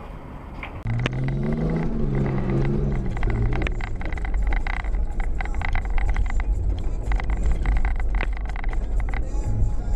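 A car driving on a snowy road: a steady low rumble, with a wavering engine tone for the first few seconds and many quick sharp clicks after that.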